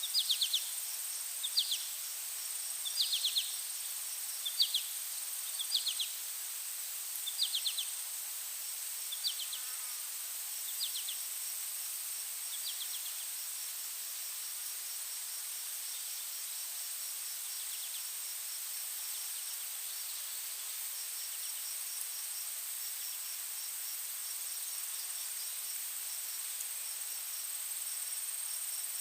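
Insects trilling: a steady high-pitched hum with a fast pulsing trill just below it. Over the first half, short chirps repeat about every second and a half and then fade out.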